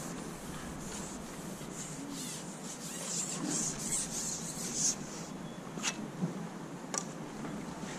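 Handling noise from pole fishing: a steady rubbing and scraping as the pole is shipped back to bring in a hooked fish, with brighter scuffs midway and a couple of light clicks late on.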